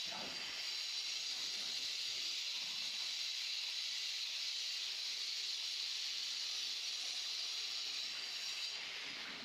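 Steady high-pitched hiss that thins out near the end.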